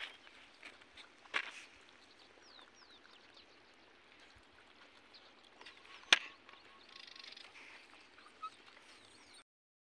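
Quiet rural outdoor ambience with faint bird chirps, broken by a sharp click about a second and a half in and a louder one about six seconds in.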